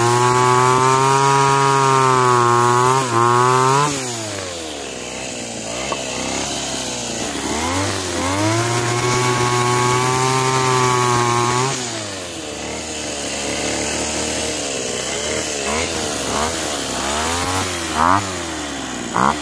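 Small grass-cutter engine driving a homemade mini chainsaw. It is revved hard and held for about four seconds, drops back to idle, is revved and held again for about four seconds, then falls back. Near the end it gives several short throttle blips.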